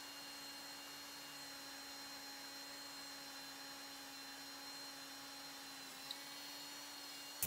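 Faint steady hum with one low tone and a thin high whine over a light hiss, with a tiny click about six seconds in.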